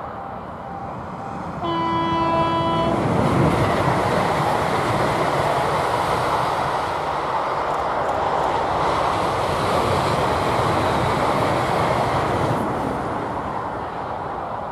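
Siemens Class 350 Desiro electric multiple unit sounding one short horn blast on a single note, under two seconds in, then passing at speed with a steady rush of wheel and rail noise that fades near the end.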